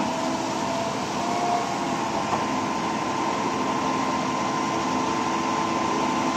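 KCP 56 m concrete boom pump truck running steadily while pumping concrete: a continuous mechanical drone with a steady high whine.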